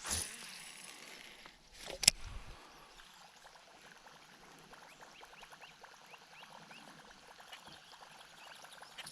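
Faint water lapping and trickling, with a dull thump at the very start and a sharp knock about two seconds in.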